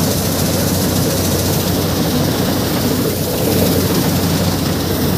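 A vehicle's engine left running, a steady low hum with loud rumbling noise over it.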